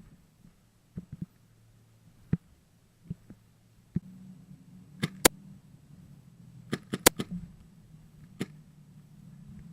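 A scattered series of sharp clicks and knocks, with a loud pair about five seconds in and a tight cluster about seven seconds in, over a faint low hum.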